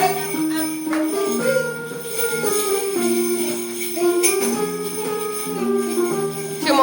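Music with jingle bells: a simple tune of held notes, with bells jingling along. A short rising sound cuts in right at the end.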